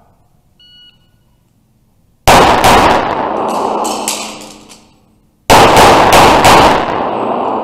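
Rapid pistol fire from a custom 2011 in .40 S&W: two quick strings of several loud shots each, the second about three seconds after the first, ringing and echoing off the concrete walls of an indoor range.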